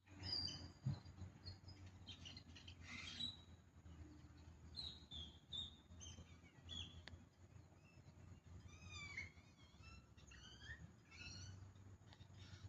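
Birds calling, faint: many short high chirps and quick slurred notes, some falling in pitch, overlapping one another, over a faint low hum.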